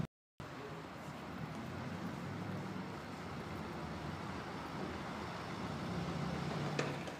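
Street traffic: a car engine runs over steady road noise and grows louder as the car passes close near the end. The sound cuts out completely for a moment just after the start.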